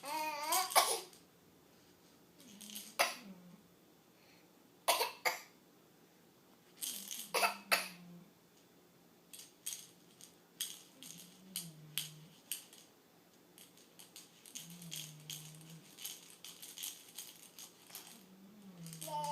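A baby's hand rattle being shaken: a few separate rattling bursts, then a long run of quick shakes from about halfway through, with short put-on coughs from the baby among them. A brief wavering baby voice sounds at the very start.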